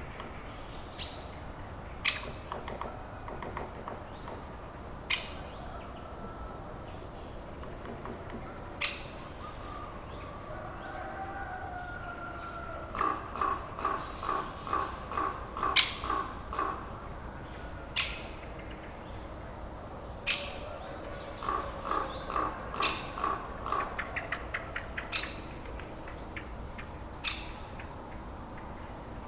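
Mixed birds chirping and calling, with scattered sharp high chirps over a steady low background hiss. Two runs of quick repeated calls, about three a second, come about halfway through and again about three-quarters through.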